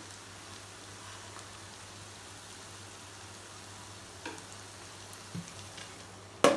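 Onions and drumsticks sizzling softly in a steel kadai, with a steady low hum underneath. A few light taps come near the end, then one sharp clank as a plate is set on the pan as a lid.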